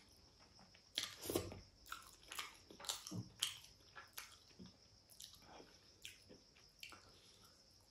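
Close-miked chewing and eating mouth sounds: a string of short wet smacks and clicks, about one or two a second, loudest about a second in.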